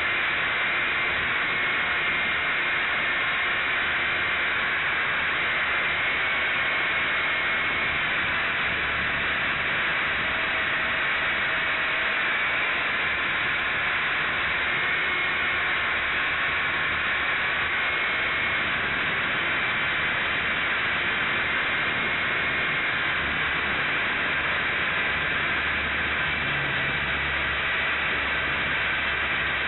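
Syma S022 RC helicopter in flight, heard through a cheap keychain camera taped to its underside: a steady hiss of motors and coaxial rotors, with a faint whine that wavers slightly in pitch.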